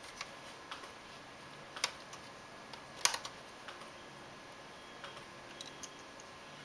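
Scattered small clicks and taps of fingers working thin Wi-Fi antenna cables into the plastic case of a Fujitsu Lifebook AH531 laptop, with two sharper clicks about two and three seconds in.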